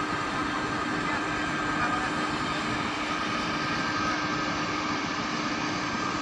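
TEP70BS diesel locomotive running steadily, close by: a constant engine drone with a few steady whining tones on top.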